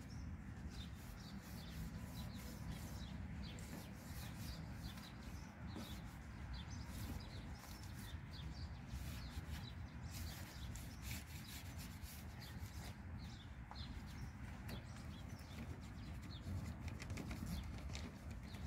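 Small birds chirping in short, repeated calls over a low, steady rumble.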